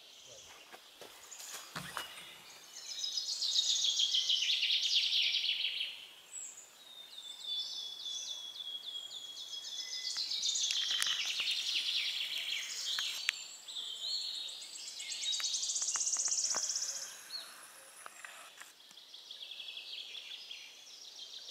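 Small songbirds singing, several high trilled and chattering phrases one after another, with a few faint clicks in between.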